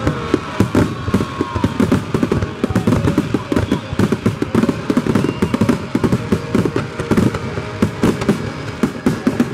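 Aerial fireworks display going off in a dense barrage: many sharp bangs and crackles, several a second, overlapping with no pause.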